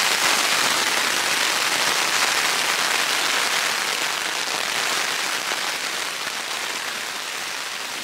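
Rain falling steadily on the flysheet of a Lanshan Pro 1 tent, heard from inside the tent, slowly fading down toward the end.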